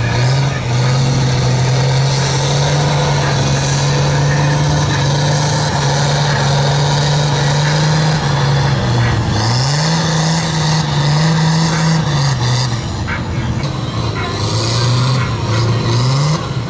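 Lifted Dodge Ram mud truck's diesel engine under load in deep mud, holding steady revs, then dropping and revving back up about ten seconds in, and climbing again near the end.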